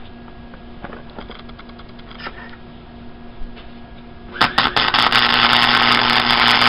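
Electric arc welder striking an arc on steel about four seconds in, then running with a steady, loud crackling sizzle. Before that there are only a few faint clicks.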